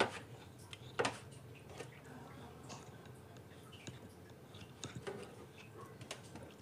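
A kitchen knife cutting squid on a plastic cutting board, with squid pieces handled at a steel sink. It makes scattered clicks and taps, the loudest about a second in.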